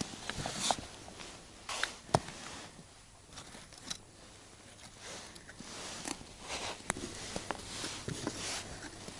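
Handling noise of small ice-fishing rods and their reels being taken out of a soft rod case: scattered light clicks and taps with rustling, two sharper clicks about two and seven seconds in.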